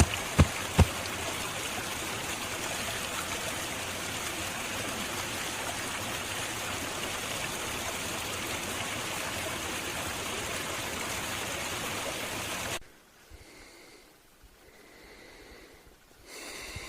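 A steady rushing noise, like running water, with a couple of sharp clicks in the first second. It cuts off abruptly about thirteen seconds in, leaving a much quieter stretch.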